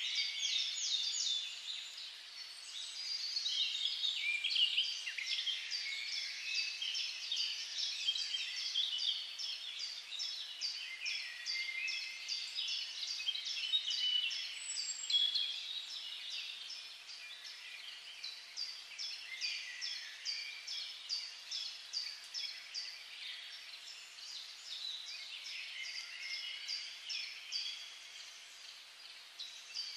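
Background chorus of small birds: many high, quick repeated chirps and trills overlapping throughout, with a faint steady hum beneath.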